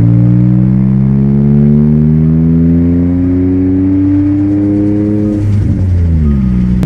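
Kia Stinger GT's twin-turbo 3.3-litre V6 exhaust, mid pipes removed so only the primary cats remain, heard from inside the cabin under gentle acceleration. The drone climbs steadily in pitch for about five seconds, then falls away as the gearbox shifts up and settles at a lower note.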